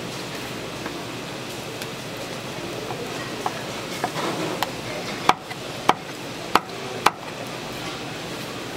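Kitchen knife chopping food on a wooden cutting board: a few light taps, then four sharp chops about half a second apart.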